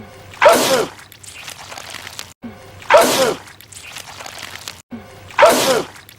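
A man's loud, wet sneeze, repeated three times in identical form about every two and a half seconds, as he sneezes out goo.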